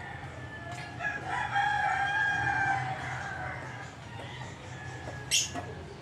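A rooster crowing once in a long drawn-out call, starting about a second in and lasting about two seconds. A short sharp high sound comes near the end.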